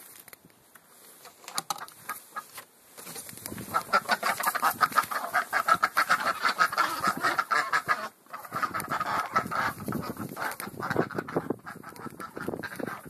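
A small flock of domestic ducks quacking in a rapid, continuous chatter, starting about three and a half seconds in, with a brief break around the middle.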